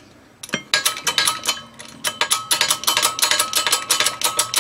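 Rapid metallic clicking, about eight clicks a second, starting about half a second in, with a ringing metal tone under it.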